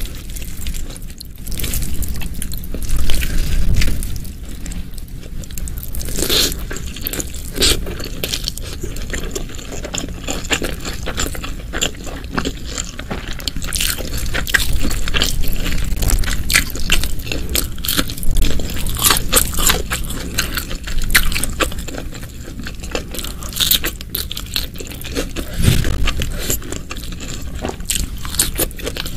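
Close-miked eating sounds from a meal of beef ribs, stir-fried water spinach and raw petai: biting and chewing, with a steady run of small crunchy and wet clicks.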